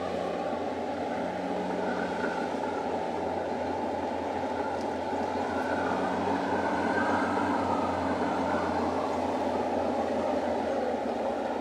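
Heavy diesel engines of a crawler bulldozer and a loaded log truck running steadily under load as the dozer tows the truck up a steep dirt grade.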